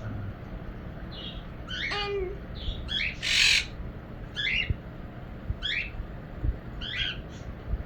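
Pet parrots calling in the room: a series of short, downward-sliding squawks about once a second, with one harsh, louder squawk a little past three seconds in.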